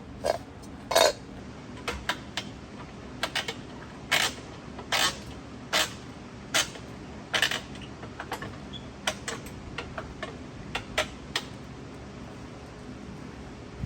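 A series of sharp metallic clanks and clicks, roughly one a second, from metal tools and tire-changer parts being handled and set in place.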